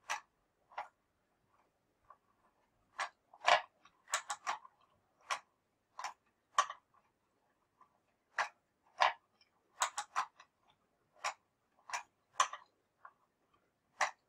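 Hand-cranked wooden automaton's mechanism clacking as the crank is turned: about twenty sharp wooden clicks and knocks at uneven intervals, some in quick pairs, as the figure's parts are driven.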